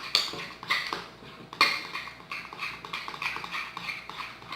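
A utensil stirring and scraping sticky glue slime in a small pot, with irregular wet squelching strokes and clicks against the pot, a few louder ones. The slime is being mixed as it is activated with boric-acid water and baking soda.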